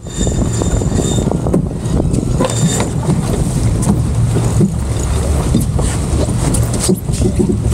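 Wind buffeting the microphone aboard a sailboat under way, with the rush of water past the hull and scattered knocks from the boat.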